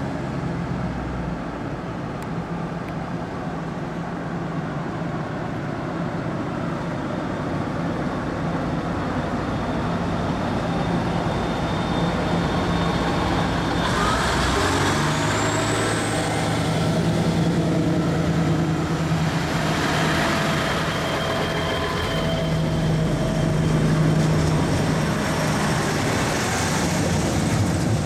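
KORAIL CDC diesel multiple unit departing: its underfloor diesel engines run steadily, then grow louder about halfway through as the train gets under way and its cars pass close by. A high rising whine comes in at the same point.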